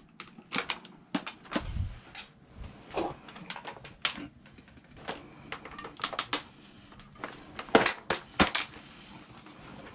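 Irregular clatter of sharp clicks and knocks, about two a second, from hard scrap items being moved and rummaged through in a dumpster. The loudest pair of knocks comes about eight seconds in.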